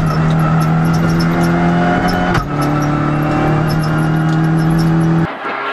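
Renault Clio Rally5's turbocharged three-cylinder engine running hard at high, steady revs, heard from inside the cabin, with a brief break about two and a half seconds in. The engine note drops away abruptly near the end as the throttle is lifted.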